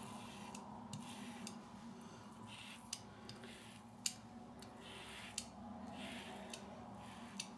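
Faint scraping strokes of a three-blade Leaf razor drawn through soap lather on a leg, one short stroke after another, about one a second, with four sharp clicks among them.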